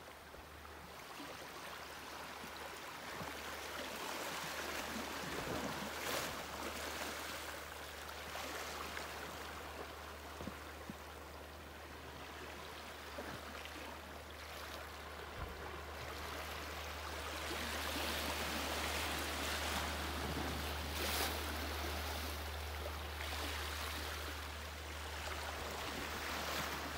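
Small waves lapping and washing against rocks at the water's edge, an uneven wash that swells louder past the middle, over a steady low hum.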